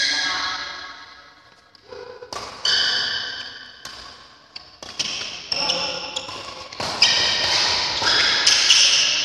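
Badminton doubles rally: a shuttlecock struck back and forth by rackets, a string of sharp hits a second or two apart, each ringing on and dying away in the hall.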